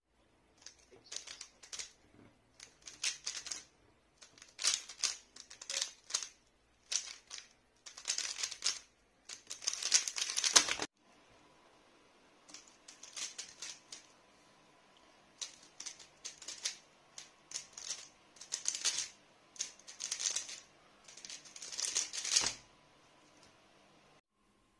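A 3x3 speed cube being turned fast by hand: bursts of rapid plastic clicking as the layers spin, broken by short pauses. There is a louder knock near the end as the solve is stopped.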